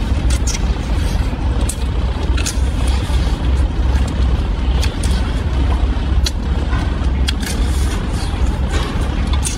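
Mantis shrimp being eaten by hand: scattered short crackles and slurps as the shell is peeled and the meat sucked out, over a steady low rumble.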